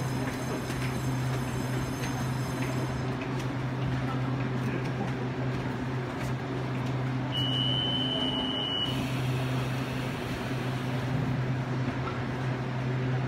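Electric multiple-unit commuter train standing at a platform, its equipment humming steadily. About halfway through, a single high warning tone sounds for about a second and a half as its doors close.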